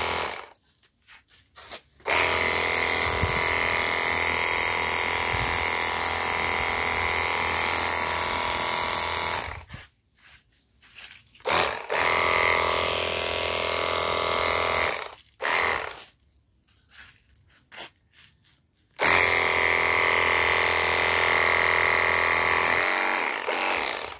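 Cordless battery pressure washer's motor and pump whining as it sprays water. It is switched on and off with the trigger: it cuts out just after the start, then runs three times for a few seconds each, with near-silent pauses between.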